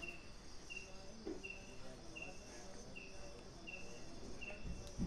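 A cricket chirping steadily, one short chirp about every three-quarters of a second, over a faint, steady high-pitched insect drone.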